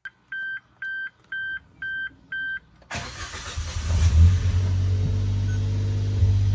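Five short, even electronic beeps about half a second apart. Then, about three seconds in, a Suzuki Jimny JB64's 660 cc turbocharged three-cylinder engine starts with a brief rev flare and settles into a steady idle.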